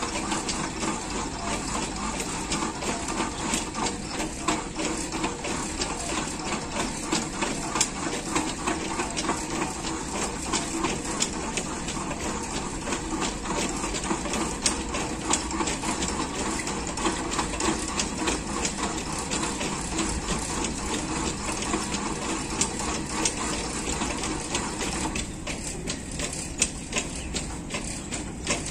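Outdoor park exercise bike's pedal crank and flywheel turning under steady pedalling, giving a continuous mechanical whirr with a dense run of small clicks and rattles.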